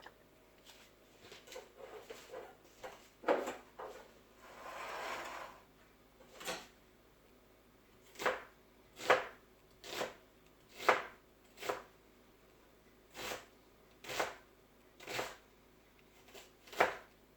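Knife cutting vegetables on a cutting board: single slow strikes, roughly one a second, with a short scraping sound about five seconds in.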